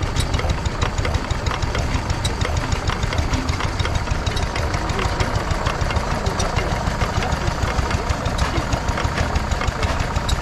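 Vintage vertical stationary engine, a 1904 Whitehead & Co. of Dukinfield, running steadily with an even, repeating knocking beat of a few strokes a second.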